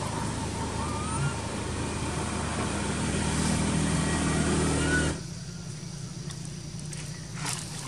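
Steady low hum of a motor vehicle engine running nearby, with a faint short rising whistle every couple of seconds. The hum cuts off abruptly about five seconds in, leaving quieter background with a few light rustles and clicks.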